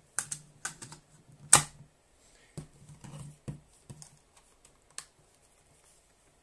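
Irregular plastic clicks and knocks from a Sony Walkman WM-50 cassette player being handled and its controls worked, with one loud sharp click about a second and a half in; the clicks thin out and stop after about five seconds.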